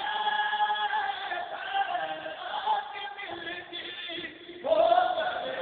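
Unaccompanied male voices chanting a noha, a Shia lament, with a lead reciter and a second voice singing together in long held notes. After a short dip, a loud new line starts near the end.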